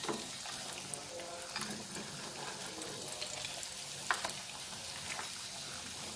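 Fla-filled gabin crackers deep-frying in hot oil: a steady crackling sizzle. A few light knocks come from the spatula against the pan as the pieces are turned, the loudest about four seconds in.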